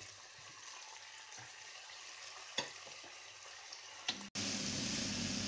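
Broccoli and carrots sizzling in hot oil in a pan on a high flame while being stirred and tossed with a wooden spatula, with a couple of light knocks. The sizzle jumps suddenly louder a little over four seconds in.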